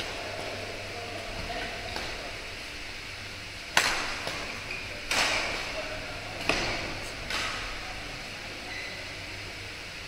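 Badminton rackets striking a shuttlecock in a fast rally: four sharp hits a second or so apart in the middle, each echoing in a large hall, over a steady hiss.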